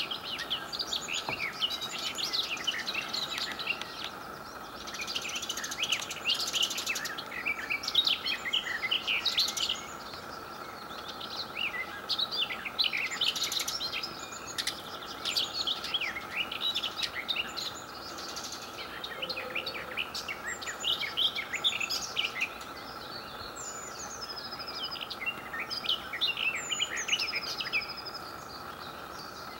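Garden warbler singing: long, fast, rich warbling phrases of a few seconds each, separated by short pauses.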